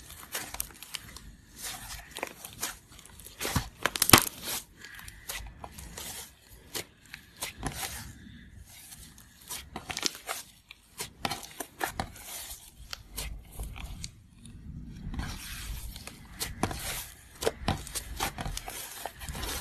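Slime being squeezed, stretched and poked by hand, making a dense run of irregular sticky crackles, pops and clicks. The sharpest pop comes about four seconds in.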